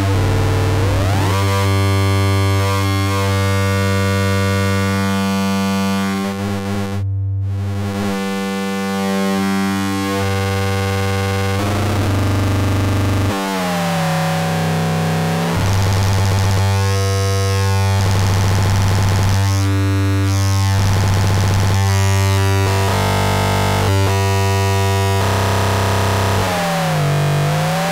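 Schlappi Engineering Angle Grinder analog quadrature VCO and waveshaper eurorack module droning on a steady low pitch, its timbre shifting and sweeping as the knobs and sliders are turned. The sound turns harsher and noisier in the second half as the GRIND -> SPIN knob turns the grind section into four nonlinear feedback loops.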